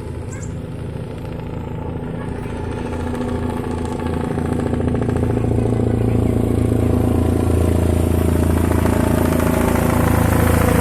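Helicopter rotor and engine drone coming in to land, growing louder over the first six seconds and then holding steady.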